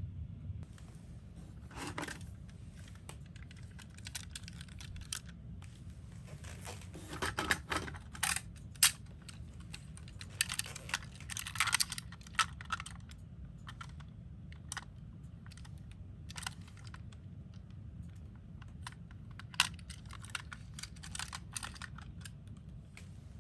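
Scattered small clicks and light clattering of toy minicars being handled, over a faint low hum. The clicks come in small irregular clusters, busiest in the middle and again near the end.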